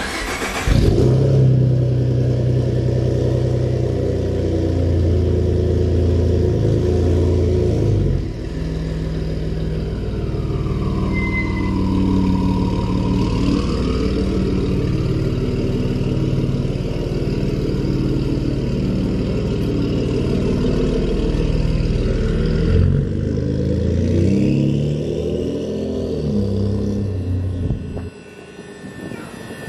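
Ford F-150's 3.5-litre twin-turbo EcoBoost V6 running through an aftermarket exhaust, revved up and down a few times. Near the end it drops to a quieter, more distant engine sound.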